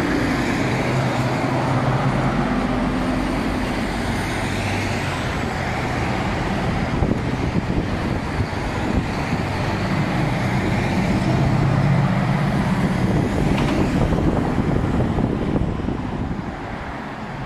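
Road traffic at an intersection: cars and trucks driving past with steady tyre and engine noise. A heavier engine's low drone swells near the start and again about ten seconds in.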